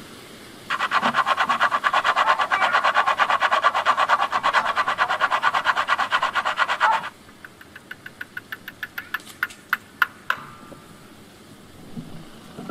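A small whole spice being grated by hand on a stainless steel box grater: fast, even rasping strokes, about six a second, that stop about seven seconds in. Fainter, sparser strokes follow until about ten seconds in.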